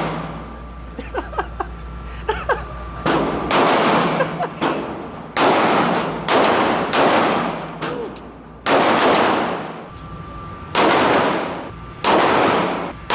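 Single gunshots fired at a shooting range, about ten shots roughly a second apart, each followed by a long echoing decay. A few light clicks come before the first shot.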